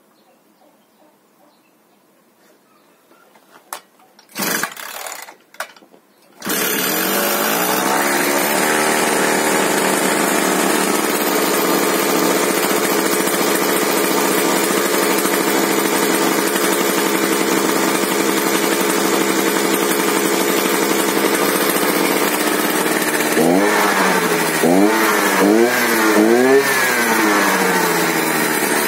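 Fuxtec MFS520 52 cc two-stroke brush cutter pull-started after standing all winter: two tugs on the recoil starter about four to six seconds in, catching on the second, then idling steadily. Near the end the throttle is blipped three or four times, the revs rising and falling. The idle sounds rough and rattles a little, which the owner puts down to the exhaust.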